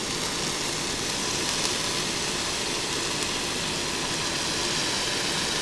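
Noodles and vegetables sizzling steadily in a hot wok as soy sauce is poured in.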